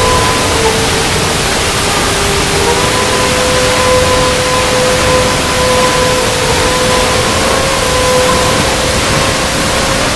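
Waterfall: steady, loud rush of falling water. Faint held notes of soft background music sit under it, shifting to a new note about a quarter of the way in.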